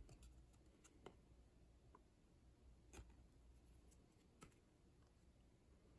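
Near silence, with a few faint ticks of stiff trading cards being moved from the front to the back of a stack in the hand.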